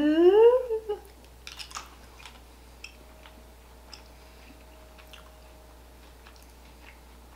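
Jelly beans being chewed: a few soft, scattered mouth clicks over quiet room tone, after a drawn-out spoken word in the first second.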